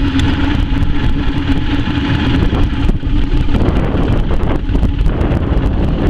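Motorboat engine running steadily under way, a constant hum, with heavy wind buffeting on the microphone.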